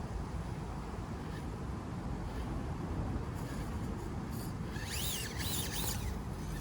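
Axial SCX24 1/24-scale RC crawler grinding slowly over rocks, its small electric motor and gears under a steady low rumble. A few short chirps rise and fall about five seconds in.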